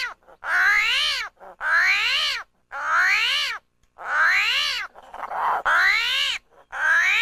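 Armadillo squealing: about six repeated squeals in quick succession, each under a second long, rising and then falling in pitch.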